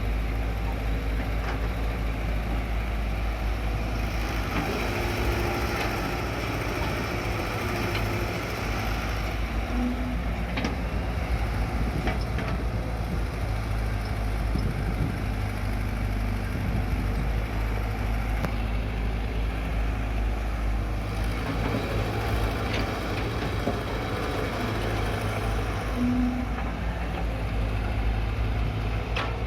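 Heavy diesel engines running steadily: a Caterpillar E120B excavator working and Bedford trucks, with a few faint clicks or knocks now and then.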